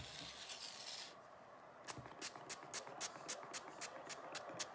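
A condiment bottle being dispensed over a plate of food. A soft hiss lasts about a second, then after a pause comes a quick, even run of about a dozen short, sharp strokes, roughly five a second.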